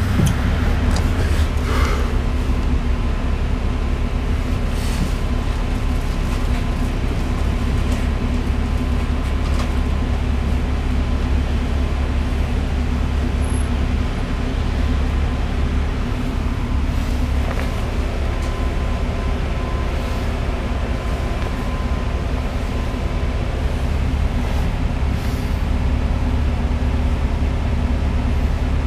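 Steady low drone of a LiAZ city bus's engine running, heard inside the passenger cabin, with a few faint clicks.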